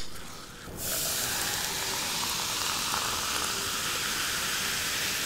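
Freshly opened Coke fizzing, a steady hiss of carbonation bubbles that starts about a second in.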